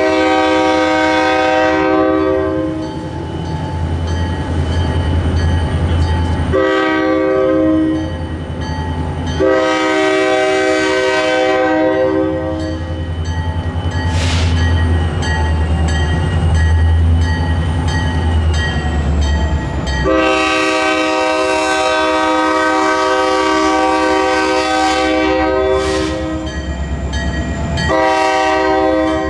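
Pan Am freight locomotive's air horn blowing a series of blasts for a street grade crossing: a long blast, a short one, two more long ones, and another starting near the end. Under the blasts is the low rumble of the locomotive's diesel engine as it comes closer.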